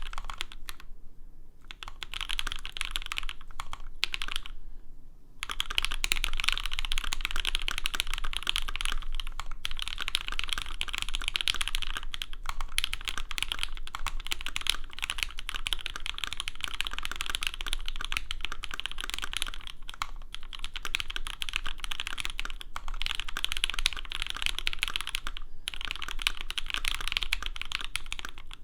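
Continuous typing on a Saka68 prototype mechanical keyboard with lubed, filmed Alpaca v1 linear switches in a carbon fiber plate and GMK Olivia++ keycaps: a dense run of keystrokes. The typing breaks off briefly twice in the first five seconds.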